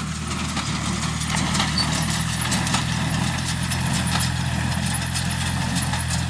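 Tractor engine running steadily while it drives a straw baler, with a rapid, uneven clicking and clattering from the baler's mechanism.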